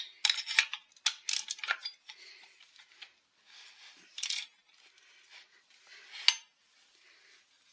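Small metal parts and tools clinking and clattering as a chainsaw is taken apart: a quick run of sharp clicks at first, then quieter handling with a few single clinks, the loudest one near the end ringing briefly.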